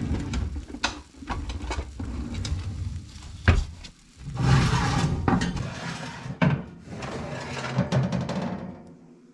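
Background music with heavy drums and percussion, fading out at the very end.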